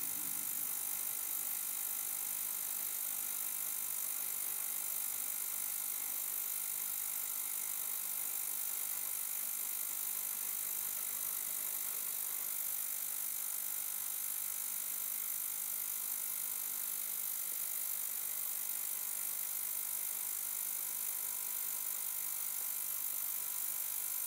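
GT Sonic 750ml ultrasonic cleaner running mid-cycle with a steady buzzing hum: a set of even tones over a high hiss, unchanging throughout.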